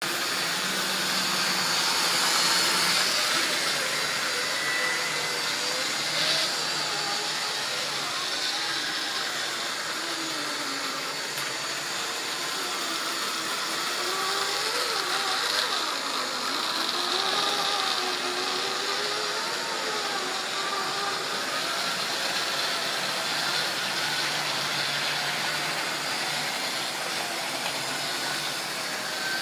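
OO-gauge model train running on its layout: a steady rumble and rattle of wheels rolling over the track, with the locomotive's small electric motor giving a faint wavering whine through the middle.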